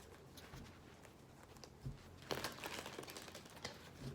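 Faint rustling and soft clicks of tarot cards being handled, with a louder rustle about two seconds in.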